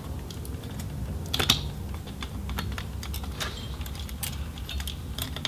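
Scattered small clicks and taps of a laptop's copper heat sink and fan assembly being wiggled loose from the motherboard, with one louder click about one and a half seconds in.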